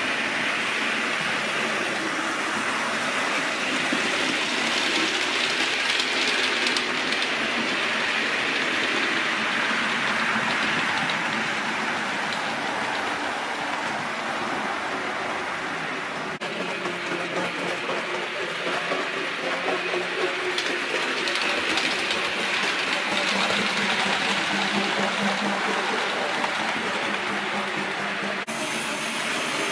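Train running on rails: a steady rolling rumble and clatter of wheels on track. The sound changes abruptly about halfway through and again near the end.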